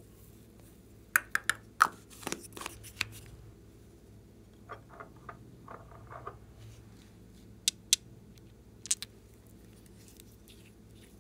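Hands handling small plastic containers of slime add-ins: a quick cluster of sharp clicks and taps in the first few seconds, softer ticks around the middle, and a few more sharp clicks near the end.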